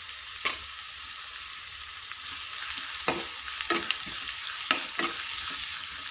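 Chopped onion sizzling steadily in hot oil in a small kadhai, being sautéed until it turns reddish. A metal spoon stirs it and knocks against the pan once about half a second in and several times from about three seconds in.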